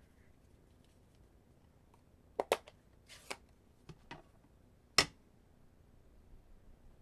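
Plastic ink pad case and craft supplies handled on a tabletop: a few scattered clicks and taps, then one sharp snap about five seconds in.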